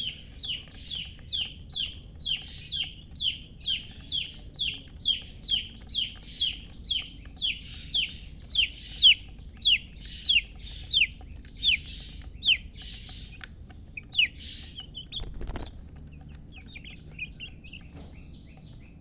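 Domestic chick peeping over and over, about two high, falling peeps a second, thinning out to scattered peeps after about twelve seconds. A dull thump comes about fifteen seconds in.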